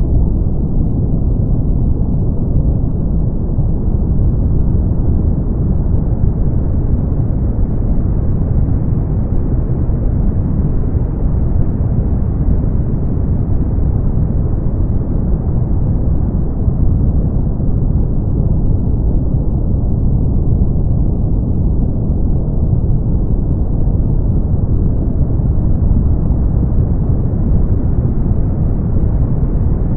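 Brown noise: a steady, deep hiss with most of its weight in the bass, its upper edge slowly swelling and easing back.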